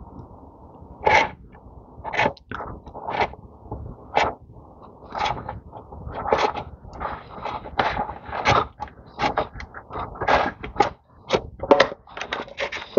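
A metal paint-style can of tank sealant being worked open by hand: a run of short clicks, taps and scrapes of metal on the can's lid and rim, coming closer together in the second half.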